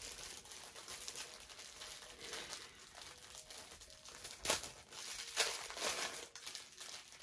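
Glossy plastic packet crinkling as it is handled and opened, with a few sharper, louder crackles about halfway through.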